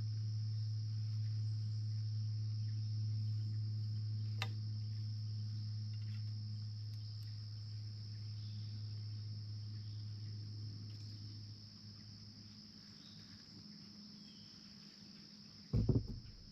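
Steady chorus of crickets and insects, one continuous high trill, over a low steady hum that fades out about two-thirds of the way through. A sharp click sounds about four seconds in, and a couple of dull thumps come near the end.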